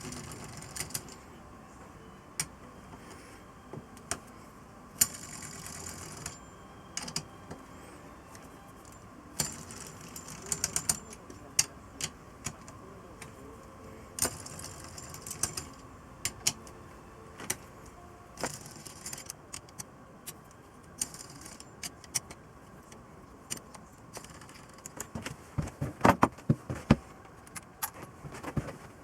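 Metal hand tools and small metal engine parts clinking and tapping, with scattered sharp clicks and a faint steady hum. A run of louder knocks comes near the end.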